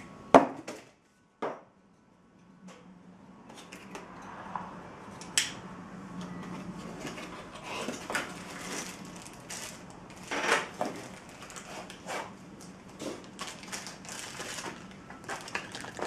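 A small cardboard box being handled and pulled open, with scraping, rustling and scattered clicks and knocks. The loudest is a sharp knock just after the start, with another about a second and a half in.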